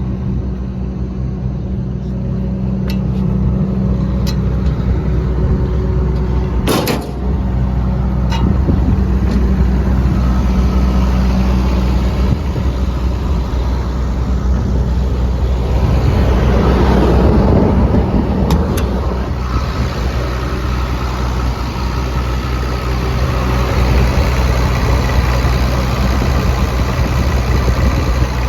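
Komatsu PC200LC-8 excavator's six-cylinder diesel engine running steadily, sounding healthy. A few sharp knocks and clicks sound over it, the loudest about seven seconds in, and a louder rushing swell comes a little past halfway.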